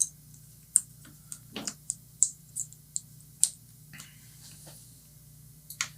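Small plastic connector parts being handled and snapped together by hand: about ten light clicks and taps at irregular intervals.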